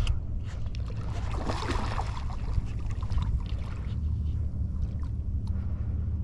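Shallow water sloshing and splashing, with one brief, stronger splash about a second and a half in, over a steady low rumble.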